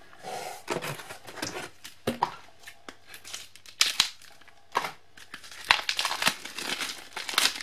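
Crinkling, rustling and tearing of a packet of postcards' wrapping as it is cut and pulled open by hand, with irregular sharp crackles.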